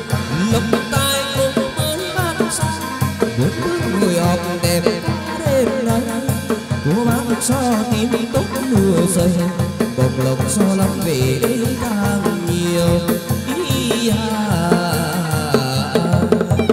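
Chầu văn ritual music: a quick, steady drum beat under a winding melody, with a voice singing.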